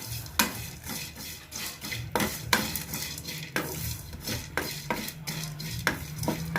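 A utensil stirring roasting dry spices and herbal roots (dry ginger, long pepper, licorice root, lesser galangal) in a pan, scraping and clicking against the pan about twice a second over a low steady hum.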